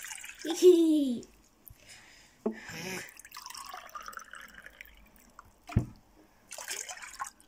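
Water poured from a plastic jug into a glass mug and tipped from the mug into a stainless steel saucepan, splashing several times as the pan is filled. There is a sharp knock about six seconds in.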